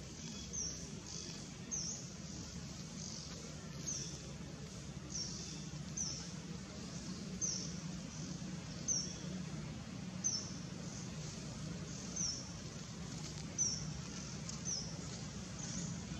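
A bird repeating a short, high, falling chirp about once a second, over a steady low background hum.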